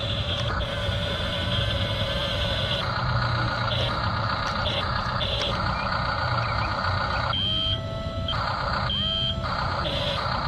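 Electric drive motors and gearboxes of 1/20-scale RC construction models whining as they start and stop, over a steady low hum. Two short electronic beeps near the end.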